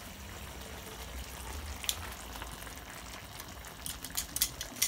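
Steak sauce simmering in a frying pan with a faint sizzle while metal tongs move a seared rump steak into it. One sharp clink about two seconds in and several quick clinks near the end as the tongs knock against the pan.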